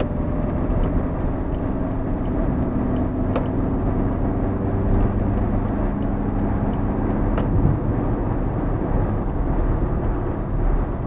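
Fiat Uno heard from inside the cabin while cruising: a steady low engine hum under tyre and road noise.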